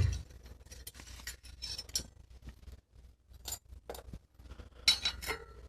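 Light metallic clicks and scrapes of a bicycle disc brake rotor being worked off a wheel hub, with a thump at the start and a few short ringing clinks of the rotor's steel in the second half.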